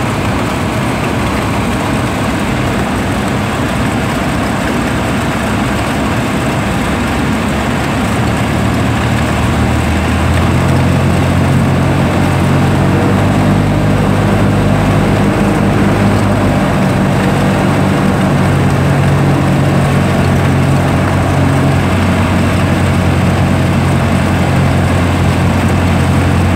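Single-engine light aircraft's engine and propeller running steadily, heard from inside the cabin on approach to land. About ten seconds in, the engine note changes and gets a little louder.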